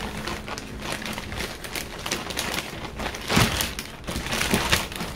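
Pink plastic bag crinkling and rustling as it is handled and lifted, a busy run of small crackles, loudest in two spells in the second half.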